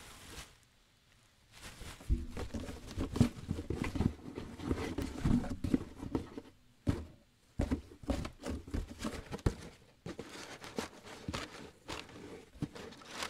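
Footsteps and rustling of bags and cardboard, with irregular knocks and thumps, starting about two seconds in.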